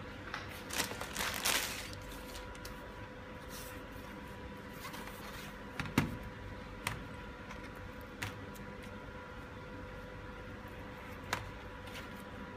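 Hands handling a laptop and small tools: a brief rustle near the start, then a few separate sharp clicks and knocks, the loudest about six seconds in, over a faint steady hum.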